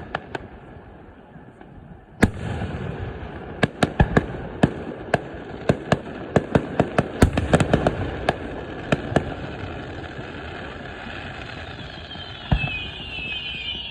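Aerial fireworks display: a heavy boom about two seconds in, then a rapid volley of sharp cracks and bangs over several seconds, with another boom and a high crackling hiss near the end.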